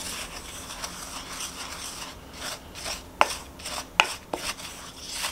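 Wooden spoon stirring a dry, crumbly flour mixture in a mixing bowl: a steady scraping rub, with a few sharp knocks of the spoon against the bowl about three and four seconds in.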